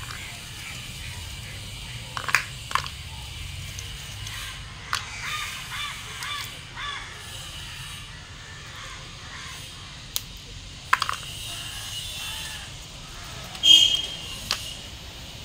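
Lumps of wood charcoal clinking and knocking against each other and the plastic basket as they are picked out by hand, a scattered handful of sharp, briefly ringing clicks, the loudest near the end.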